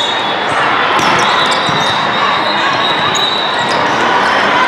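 Busy volleyball hall din: crowd and player chatter echoing in a large hall, with scattered sharp ball hits and knocks and a thin steady high-pitched tone through most of it.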